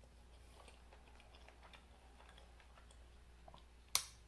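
A person chewing a mouthful of soft pasta close to the microphone: faint wet mouth clicks, with one sharper click near the end.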